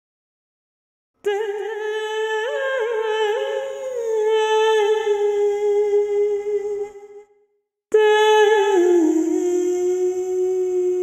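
Wordless humming of long held notes, the start of a song. After about a second of silence one note starts abruptly, wavers up and back, and fades out about seven seconds in; a second note starts about a second later, dips slightly and holds.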